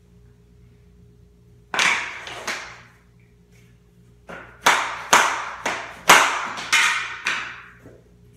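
A hammer knocks on a pull bar at the end of a vinyl floor plank, tapping the click joint closed. There are two strikes, then after a short pause a quick run of about seven more.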